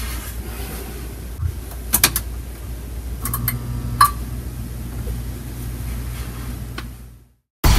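Steady low rumble of a moving vehicle, with a few sharp clicks about two seconds in and again near four seconds. It fades out near the end.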